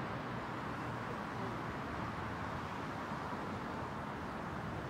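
Steady outdoor background noise: an even rumble and hiss with no distinct events, the kind left by distant traffic.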